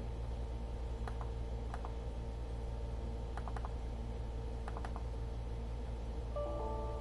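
Scattered light clicks, singly and in quick groups of two or three, from someone working an Asus X553M laptop, over a steady low hum. Near the end a short electronic chime of several tones sounds.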